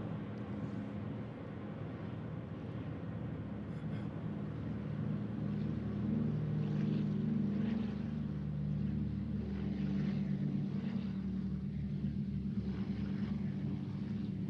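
Low, steady engine drone with a constant pitch, growing louder about halfway through.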